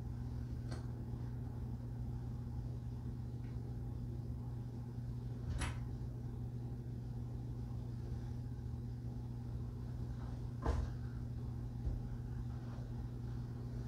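Three sharp clicks about five seconds apart as plastic sewing clips are snapped onto the edge of two fabric pieces, with quiet fabric handling between them. A steady low hum runs underneath.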